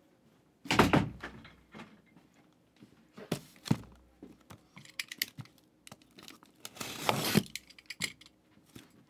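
A sealed cardboard case of trading-card boxes being set down and handled on a table. There is a heavy thump about a second in, another a little past three seconds, light knocks in between, and a rough rustling stretch around seven seconds in.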